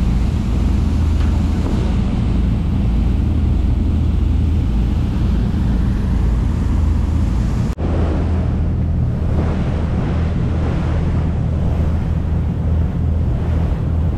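Fishing party boat under way at cruising speed: its engine drones steadily, with rushing water from the hull and wind buffeting the microphone. About halfway in the sound breaks off for an instant, and after that the wind and water noise is stronger.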